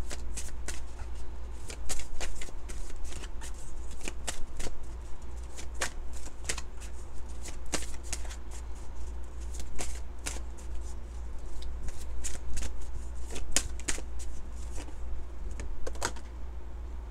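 An oracle card deck being shuffled by hand: a steady stream of irregular, crisp card slaps and clicks as packets of cards are slid and dropped against each other.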